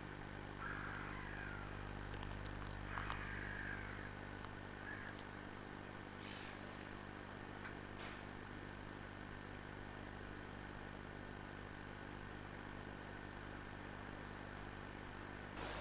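Class 37 diesel locomotive's engine idling steadily with a low, even hum. A few short high chirps sound over it in the first five seconds.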